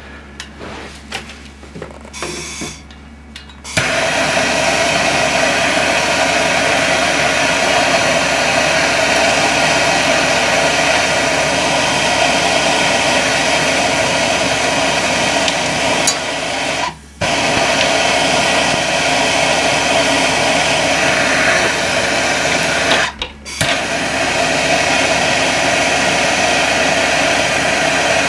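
Handheld gas torch burning with a steady hiss while it heats a copper pipe joint for soldering. It starts about four seconds in and cuts out briefly twice.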